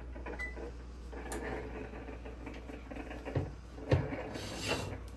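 A short electronic beep from an electric oven's control panel as a key is pressed, then the clatter of a plate on the metal oven rack being handled, with a sharp knock just before four seconds in.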